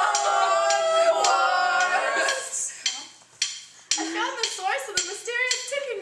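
Several young voices sing a held note together and break off about two seconds in. Then come lively voices, with scattered sharp clicks and clinks.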